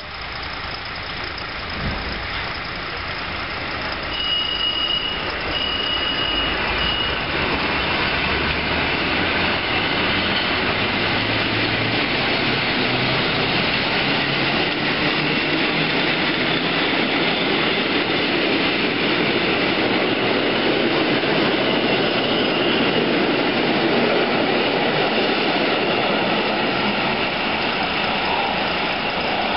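Two coupled EN57 electric multiple units pulling away from a halt and running past, a steady rumble of wheels on rails that grows louder over the first few seconds and then holds. A low hum rises slightly in pitch partway through as the train gathers speed, and a few short high beeps sound about four to seven seconds in.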